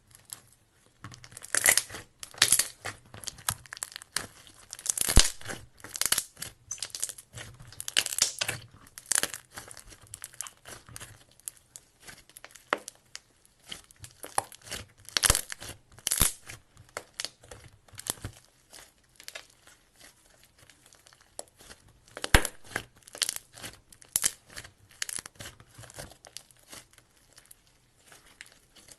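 Clay slime being mixed and squeezed by hand, with a steady run of sticky crackles, pops and squelches, some much louder than the rest.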